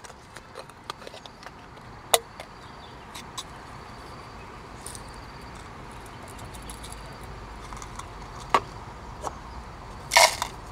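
Small clicks, knocks and clinks of tea things being handled while tea is prepared, scattered irregularly over a faint steady hiss. The loudest is a short clatter about ten seconds in.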